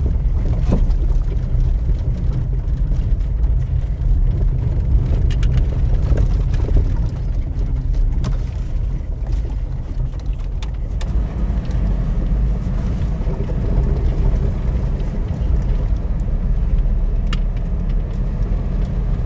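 Tata Tiago hatchback driving slowly over a rough, unpaved dirt track, heard from inside the cabin: a steady low rumble of engine and tyres on the loose surface, with a few short, sharp knocks.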